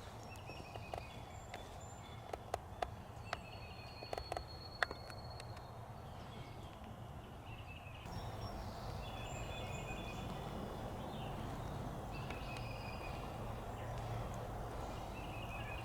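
Birds calling again and again, a short call every few seconds, over quiet outdoor ambience. A few sharp clicks or snaps come in the first five seconds.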